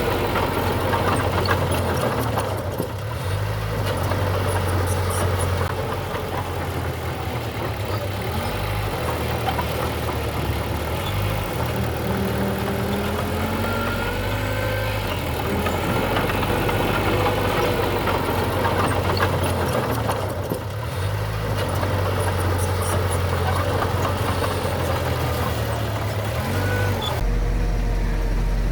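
Heavy diesel construction machinery running, its engine note shifting up and down as it works, with a few brief squeals in the middle. The sound changes abruptly near the end.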